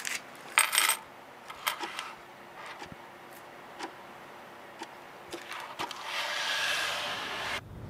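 Coins clinking and clattering on a shop counter as money is paid over, with scattered sharp clicks and a brighter jingle about half a second in. Near the end comes a second or so of rustling hiss that cuts off suddenly.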